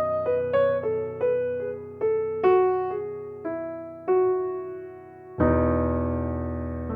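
Background music: a soft piano melody of single notes struck one at a time and left to fade, ending on a fuller held chord about five and a half seconds in.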